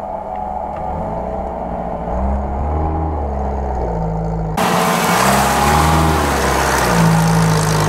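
A modified UAZ-469 off-roader's engine revving up and down several times under load as it climbs a steep grassy slope. About halfway through, a loud steady hiss comes in abruptly over the engine.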